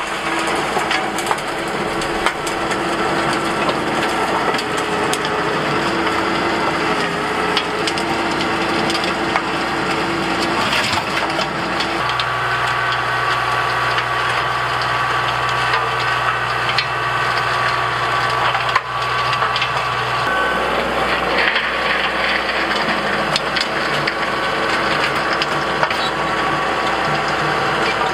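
Kubota L3901 compact tractor's three-cylinder diesel running under load while its PTO-driven 6-foot rotary tiller churns rough, cloddy soil, with frequent clicks and knocks from clods and stones hitting the tines. The engine note shifts for several seconds partway through as the tractor works the far end of the patch.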